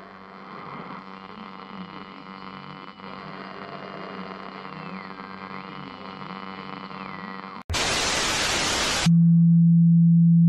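Eerie droning background track with a faint, slowly wavering high tone. About seven and a half seconds in it cuts to a sudden burst of loud static hiss lasting about a second and a half. That gives way to a loud, steady low hum.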